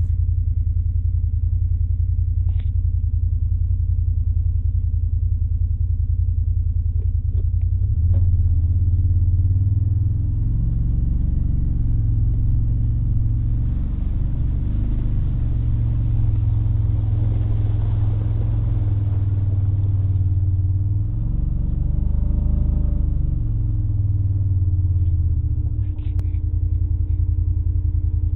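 Vehicle engine running with a steady low rumble and hum, its note shifting about eight seconds in and again a little past twenty seconds, with a few faint clicks.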